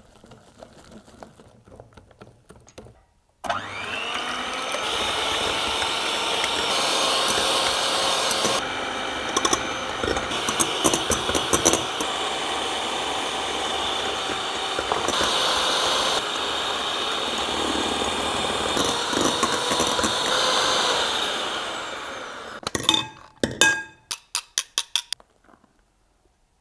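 Electric hand mixer beating egg whites in a glass bowl: the motor starts suddenly a few seconds in, spins up, runs steadily with the beaters clattering against the bowl at times, then winds down. A quick run of sharp taps follows just after it stops.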